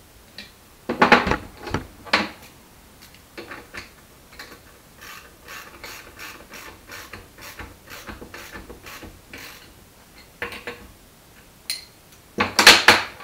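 Hand socket ratchet clicking at about three clicks a second for several seconds as the bolts clamping a split steel chain sprocket are lightly snugged up. Loud metallic clatter of bolts and tools being handled about a second in and again near the end.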